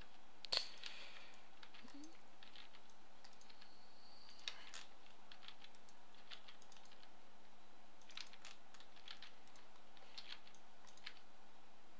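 Sparse clicks of a computer keyboard and mouse, a few at a time, the loudest about half a second in, over a steady low electrical hum.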